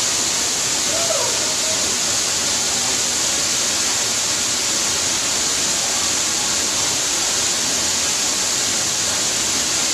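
Ermayi Falls: water pouring off a rock ledge and splashing onto the rock below, a steady, unbroken rush of falling water.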